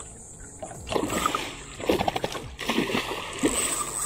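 A hooked tarpon thrashing at the surface on the line, splashing hard in several bursts starting about a second in.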